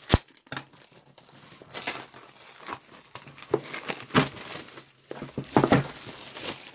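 Clear plastic shrink-wrap being cut with a knife and peeled off a cardboard box, crinkling in irregular bursts. There is a sharp click at the very start.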